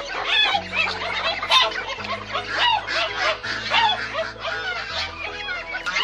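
Caged brown hens clucking and squawking, many short calls overlapping throughout.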